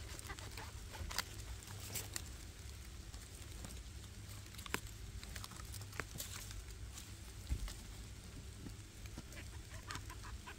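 Faint knife-cutting and handling sounds as oyster mushrooms are sliced off a mossy log: scattered soft clicks and rustles over a low steady rumble.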